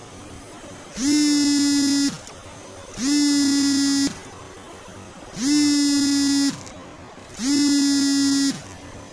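A loud horn sounds four long blasts, each about a second at one steady pitch, roughly two seconds apart.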